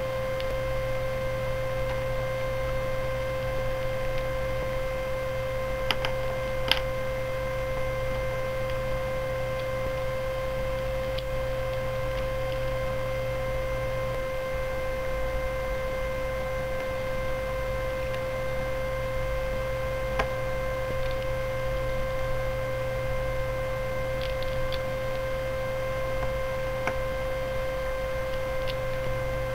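Steady electrical hum with a high, even whine, and a few faint clicks of plastic puzzle pieces being handled and fitted together, the clearest about six and seven seconds in.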